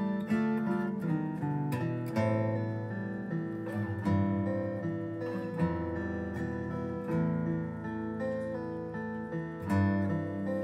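Acoustic guitar improvising plucked lines in A minor over a backing track, the picked notes ringing above long, held low chords.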